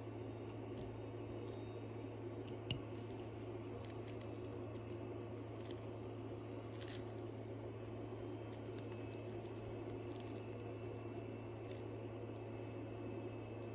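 A steady low hum under a few faint, small clicks of watchmaker's tools on the parts of an Eterna calibre 1117U movement. The sharpest click comes about three seconds in.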